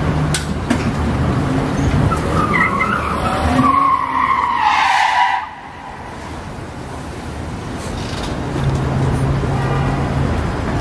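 Vehicle engine running with a low hum, then car tyres squeal in a skid for about three seconds, the screech falling in pitch before it cuts off abruptly about five seconds in. The low engine hum returns near the end.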